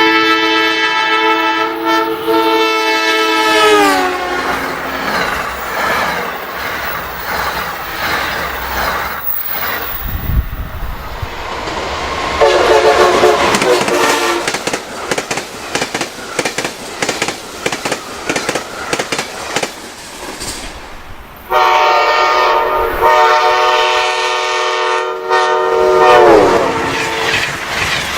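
Passing Amtrak train's five-chime K5LA horn sounding a long chord that drops in pitch as the locomotive goes by, then the rattle and clatter of the train on the rails. A short horn blast comes about twelve seconds in, and another long blast starts about twenty-one seconds in and also drops in pitch near the end.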